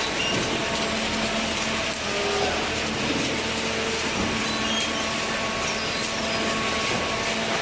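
Fully automatic vertical hydraulic cardboard baler running: a steady mechanical noise with a low hum underneath.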